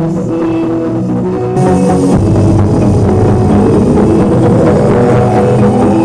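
Music with drums played loud through a Medha power amplifier and a JBL SRX passive PA speaker as a sound test. About a second and a half in, it gets louder and fuller, with more treble and deep bass.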